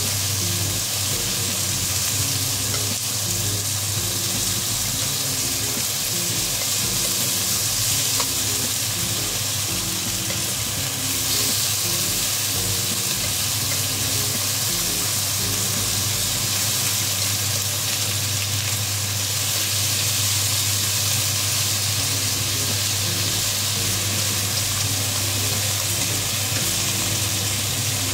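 Sliced beef frying with onion, red pepper and garlic in a nonstick wok: a steady sizzle, with the meat turned now and then with chopsticks.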